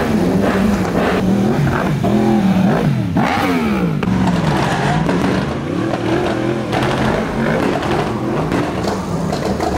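Vehicle engines revving hard, their pitch sweeping up and down again and again.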